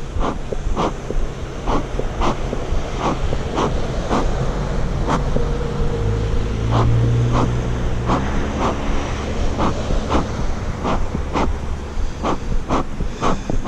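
Bee smoker bellows pumped in steady rhythm, about two puffs of air a second, over a low steady hum of bees.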